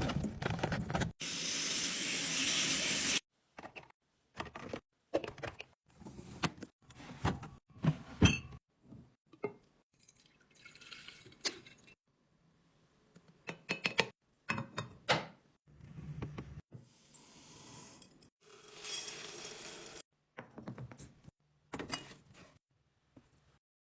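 Restocking sounds chopped by quick edits: a rushing noise lasting about two seconds near the start, then clusters of short clicks, clinks and knocks of containers and items being handled and set down, with abrupt silent gaps between them.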